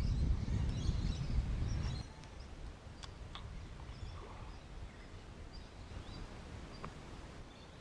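A low rumbling noise cuts off suddenly about two seconds in, leaving quiet outdoor ambience with scattered short bird chirps and a couple of sharp clicks.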